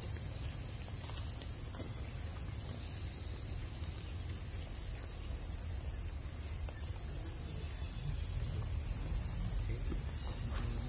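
Steady, high-pitched drone of a forest insect chorus, unbroken throughout, over a steady low rumble.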